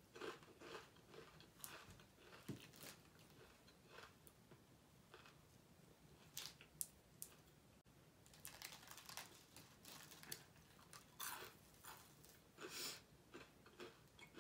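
Faint, irregular chewing and crunching of fried fast food close to the microphone, with occasional crinkles of the paper wrapper as food is picked from it.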